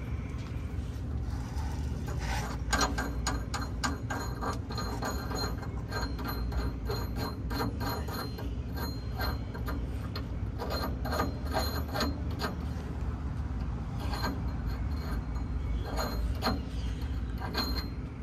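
A socket wrench ratcheting: runs of quick, sharp metallic clicks at a few per second, stopping and starting, over a steady low hum.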